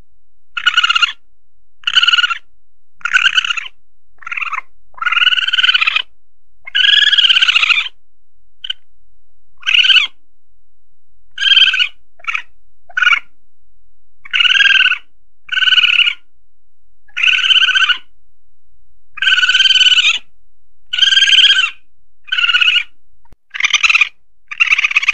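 Repeated calls of an Asian palm civet (musang pandan), a lure recording for calling in wild civets: short calls about once a second, some longer than others, with a gap of about a second and a half about a third of the way through.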